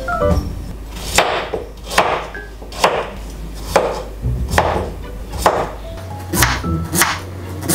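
Chef's knife chopping potatoes on a cutting board: about nine cuts, roughly one a second and a little quicker near the end, each ending in a sharp knock of the blade on the board.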